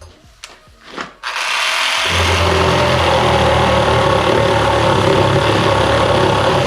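Makita JR105DZ 12 V cordless reciprocating saw running and cutting, a loud steady buzz that starts about a second in, after a few short handling clicks.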